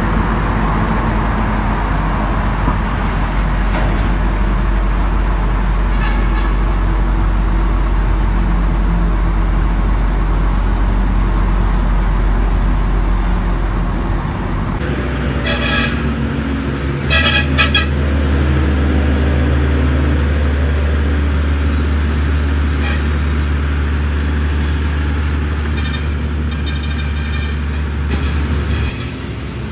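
Truck engine droning steadily while driving, heard from inside the cab. The drone rises in pitch about halfway through. Horns toot briefly a few times in the second half: two short bursts a little after halfway, then more near the end.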